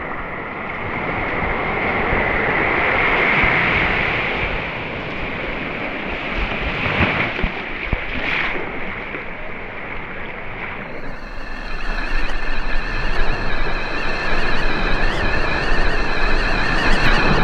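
Small surf waves washing and hissing up a sandy beach, with wind buffeting the microphone. In the last third a steady high tone, several pitches stacked, sits over the surf.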